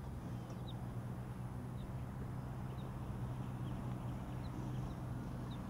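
Model airplane's motor droning steadily at constant throttle, a low even hum. Faint short high chirps are scattered through it.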